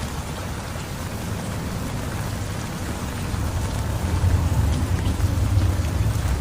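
Heavy rain falling steadily in a dense hiss, with a low rumble underneath that grows louder about two-thirds of the way through.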